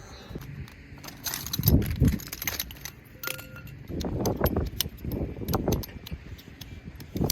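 Small hard objects clinking and knocking, with a few dull thuds.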